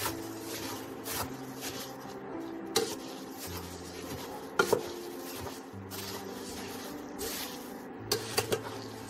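Metal spatula stirring and tossing puffed rice in a steel pan, a steady dry rustling and scraping as the puffed rice is mixed through the fried peanuts and spices. There are a few sharp knocks of the spatula against the pan: one about three seconds in, one a little before five seconds, and several close together near the end.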